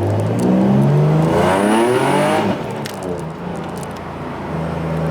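Nissan Z's engine revving up hard under acceleration, its pitch climbing for about two seconds. It then drops off and settles into a lower, steady drone, heard from inside the cabin.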